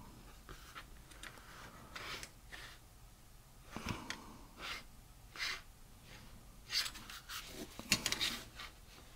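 Faint, scattered rubbing and light knocks from a plastic model-kit sprue being handled and moved about, with the two sharpest knocks about four and eight seconds in.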